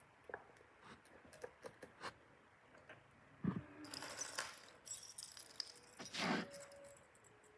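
Small pieces of jewelry (rings, bracelets and metal charms) clicking and jangling as they are handled and set into a jewelry box tray. A few light clicks at first, a soft bump about halfway, then a run of jangling that is loudest about six seconds in.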